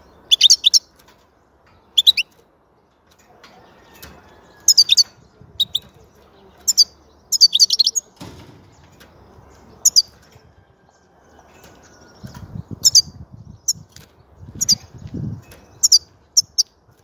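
European goldfinch in a wire cage giving about a dozen short bursts of high, twittering calls, with wing flutters and rustling as it hops between perches, mostly in the second half.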